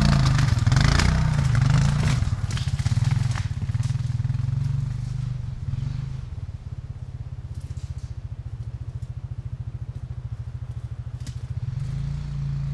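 Single-cylinder four-stroke off-road engine idling. It is louder and wavering for the first three seconds or so, then settles into a steadier, quieter idle.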